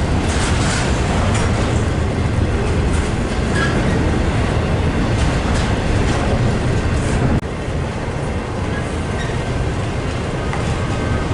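Train running on the rails: a steady rumble of wheel noise with a few faint short squeaks, dropping a little in level about seven seconds in.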